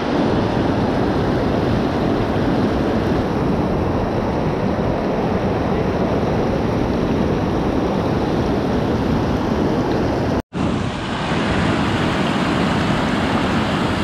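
River whitewater rushing steadily over a low rock ledge of a small waterfall, cutting out for an instant about ten and a half seconds in.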